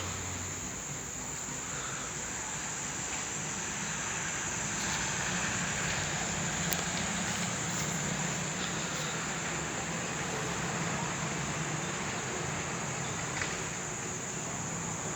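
Steady high-pitched drone of insects, like crickets, with a low hum underneath and a single sharp click about seven seconds in.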